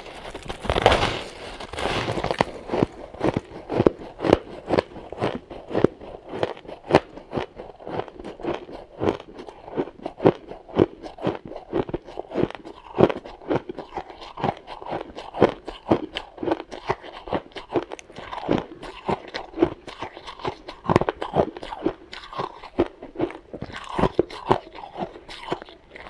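Close-up crunching of a person biting and chewing compacted powdery frost ice, a steady run of sharp crunches about two or three a second.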